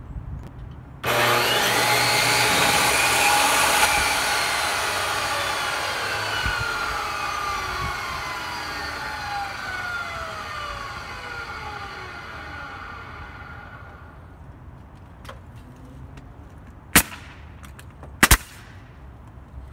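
A power saw starts about a second in and cuts wood for about three seconds, likely a cedar shake being trimmed. Its blade then winds down with a falling whine that fades over about ten seconds. Near the end a pneumatic nail gun fires, once and then twice almost together.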